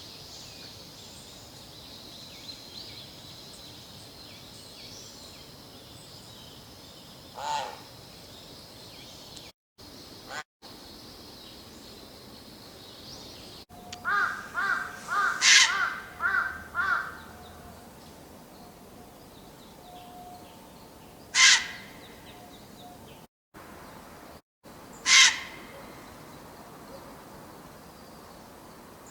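Wild bird calls over a steady outdoor hiss: a single short call, then a run of several calls in quick succession, then two loud, sharp calls a few seconds apart. Brief silent gaps break in where recordings are joined.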